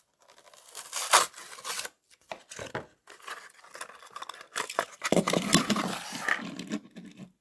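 A toy car's cardboard-and-plastic blister pack being opened by hand: irregular tearing and crinkling, with a sharp rip about a second in and a longer run of tearing and rustling from about five seconds in.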